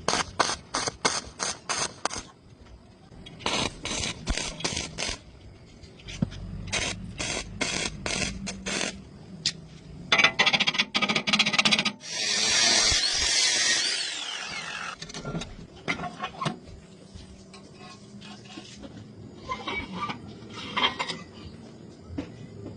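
Rapid runs of hammer blows on metal, about four a second, in groups of a few seconds each. About halfway through there are a couple of seconds of hissing noise, followed by scattered lighter knocks.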